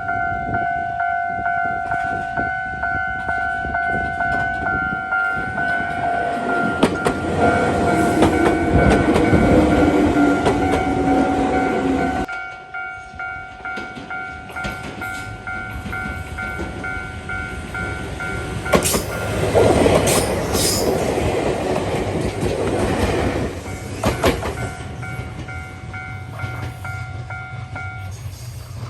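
Japanese level-crossing alarm ringing in a steady repeated pulse while electric commuter trains pass, their wheels clacking over the rail joints. The passing noise rises twice, then the crossing alarm stops near the end.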